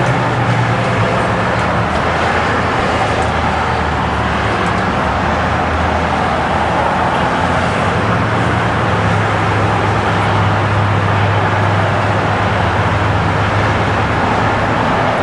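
Steady road traffic noise with a low engine drone, its pitch shifting slightly about eight seconds in.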